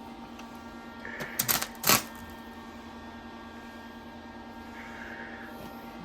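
Electric welder humming steadily, with a couple of short crackling bursts about a second and a half and two seconds in as the welding arc briefly strikes.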